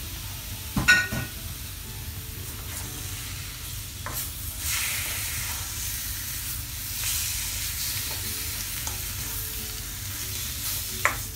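Raw chicken pieces sizzling in a black nonstick wok as they are stirred into the hot spice masala with a spatula. There is a sharp knock about a second in and a few lighter clicks later, and the sizzle grows a little louder about halfway through.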